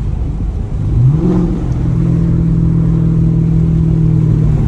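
Dodge Charger R/T V8 running through an exhaust with its mid-mufflers deleted. The engine note rises about a second in as the revs climb, then holds a steady drone.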